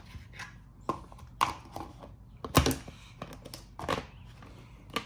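Homemade slime being handled and put away: a string of irregular squishes, clicks and crinkles, the loudest about two and a half seconds in.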